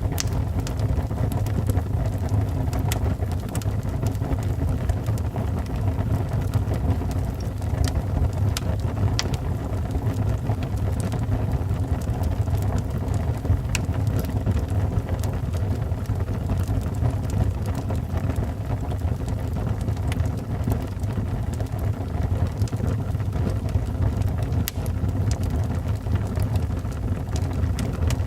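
Wood fire burning in a fireplace: a steady low rumble of flames with many small, sharp crackles and pops at irregular intervals.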